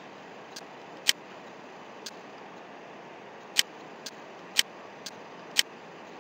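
Computer mouse clicking: four loud, sharp clicks, one about a second in and three a second apart in the second half, with fainter clicks between them, over a steady low hiss.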